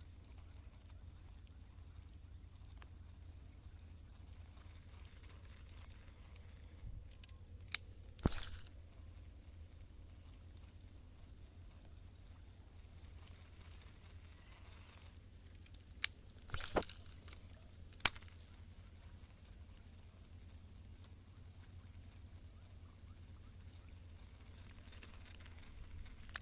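Insects chirring in a steady, high, continuous drone, with a few sharp clicks and knocks about 8 seconds in and again around 16 to 18 seconds.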